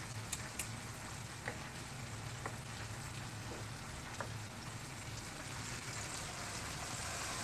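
Hot oil sizzling and crackling steadily in a frying pan as breaded chicken fries, with a few light clicks, getting a little louder toward the end.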